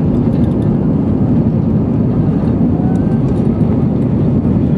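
Airbus A320-200 cabin noise during the climb after takeoff: a steady, dense low rumble of the engines and rushing air, heard from a passenger seat by the window.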